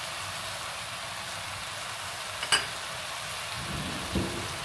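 Noodles and vegetables sizzling steadily in a non-stick wok over a medium flame, with one sharp click about halfway through and a short knock near the end.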